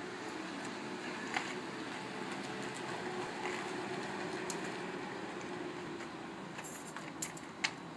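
Steady outdoor background hum, with a few light clicks and taps from broken coconut shell pieces being picked up and handled; the sharpest clicks come near the end.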